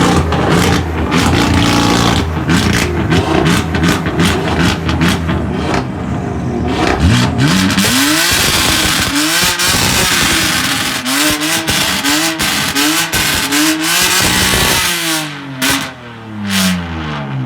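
BMW M car exhaust: the engine runs with a stream of sharp crackles and pops, then is blipped repeatedly in quick revs about every half second, and near the end the revs fall away.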